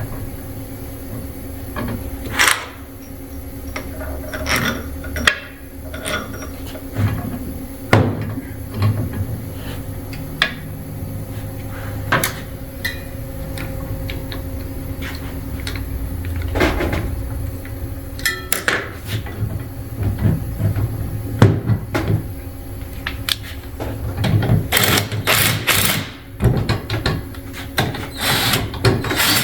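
Metal tools and parts clinking and knocking as the pump arm of an IOM I70 injection pump is bolted back onto its base, with the knocks coming thicker near the end. A steady low hum runs underneath.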